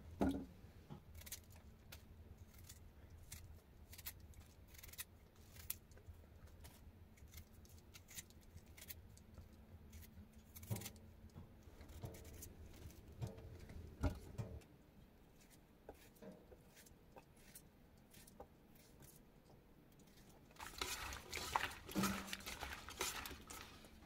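Peeled potatoes being cut into chunks over a small stainless-steel pot: quiet scattered clicks and knocks of knife and potato pieces against the metal, with a busier run of cutting and chunks dropping in near the end.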